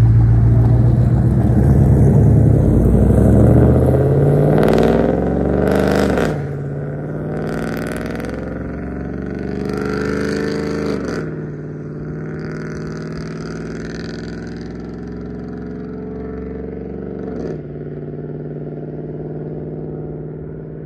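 2011 GMC Sierra's 5.3 L V8, breathing through long-tube headers with no catalytic converters into a Magnaflow bullet muffler, accelerating hard through the gears. The exhaust note climbs in pitch, drops at upshifts about six and eleven seconds in, then settles into a steady cruising drone.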